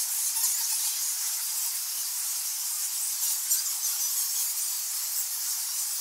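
Roosting colony of flying foxes (large nectar- and fruit-eating bats) chattering and squealing, many shrill calls overlapping into a steady din.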